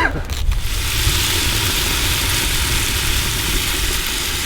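Steady rumble and hiss of a running vehicle.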